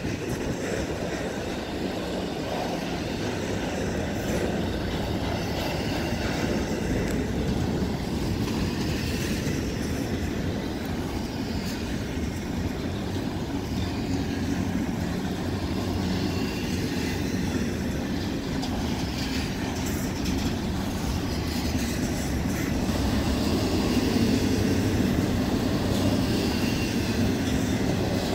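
Double-stack freight cars rolling past, with a steady rumble of steel wheels on the rails that grows a little louder near the end.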